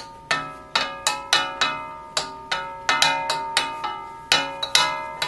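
Steel wok struck again and again with cooking utensils as an improvised drum, about three clangs a second in an uneven beat, each ringing out at the same few metallic pitches.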